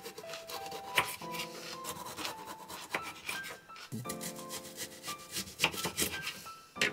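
A kitchen knife slicing a bell pepper and an onion on a wooden cutting board: rasping cuts with a few irregular sharp knocks of the blade on the board. Background music with held notes plays underneath.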